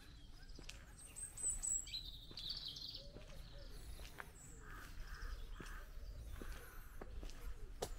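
Birds at dawn: small songbirds chirping and warbling in the first few seconds, then a crow cawing harshly several times just past the middle, over a faint outdoor rumble with soft steps on a gravel lane.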